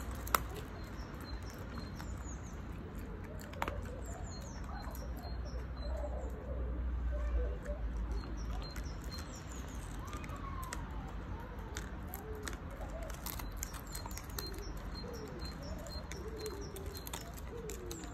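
A Keeshond puppy chewing a crispy chicken foot, with scattered sharp crunches of bone. Birds chirp and twitter in the background, with rows of short high notes repeated several times.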